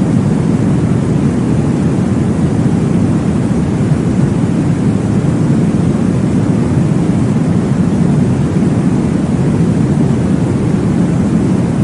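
Steady, deep whooshing noise, weighted to the low end and unchanging, a baby sleep sound made to imitate the whoosh of blood flow heard inside the womb.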